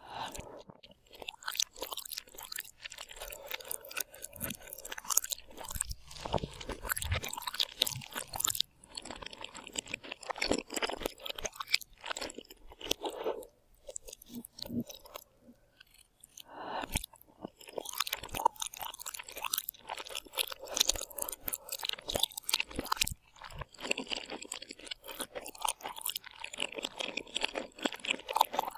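A person chewing and crunching crisp food close to the microphone, in crackly runs of bites and chews with a quieter break about halfway through.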